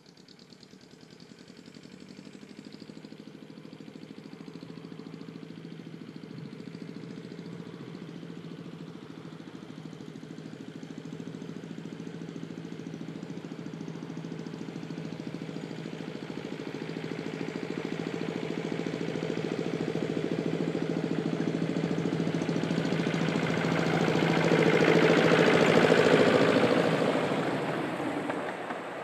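Miniature railway locomotive's engine running steadily, growing louder as it approaches, loudest near the end, then fading as it passes.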